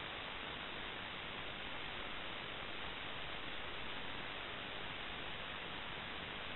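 Steady static hiss with no distinct events.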